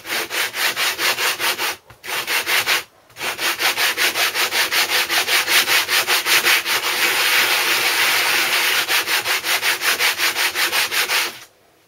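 Briggs & Stratton 5 hp cylinder head rubbed back and forth by hand on 120-grit sandpaper, a quick, even scraping at about four or five strokes a second, with two brief pauses in the first few seconds and a sudden stop near the end. The head is being lapped flat on the paper to grind down its high spots.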